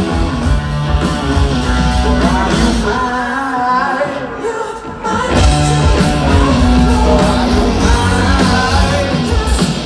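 Rock band playing live with singing, heard from the crowd. Around the middle the music thins out and the bass drops away briefly; the full band comes back about five seconds in.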